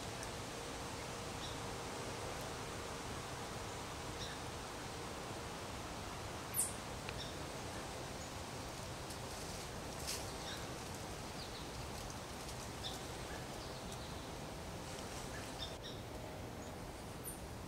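Woodland ambience: a steady hiss with faint, scattered high bird chirps, and one sharper, louder high tick about six and a half seconds in.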